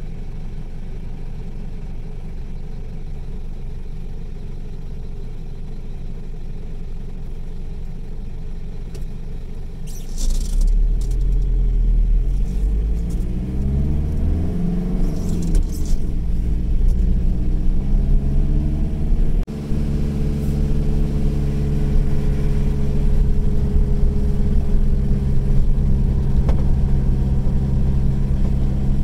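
A car's engine and road noise heard from inside the cabin. It is a lower steady hum for about ten seconds, then grows louder as the car gets going, the engine pitch sliding up and down. After that it runs steadily at cruising speed.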